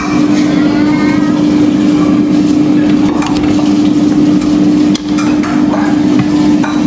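Scrambled eggs cooking in a stainless steel skillet, stirred and scraped with a wooden spatula, with a few light knocks of the spatula on the pan. A steady low hum runs underneath and drops out briefly about five seconds in.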